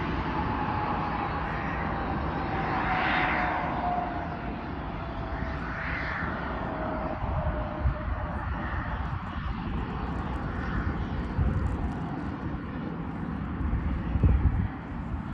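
Cessna business jet's turbofan engines running: a broad rush with a whine that slowly falls in pitch over the first several seconds. Low rumbling bursts come near the end.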